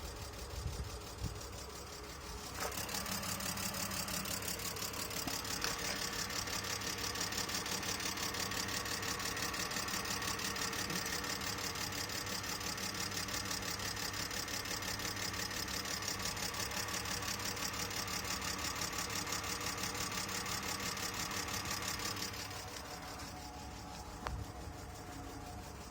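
BMW E46 320 engine idling roughly with a steady, rhythmic clatter that sounds like a tractor, after the car has stood unused for a year. The sound gets louder a couple of seconds in and drops back near the end.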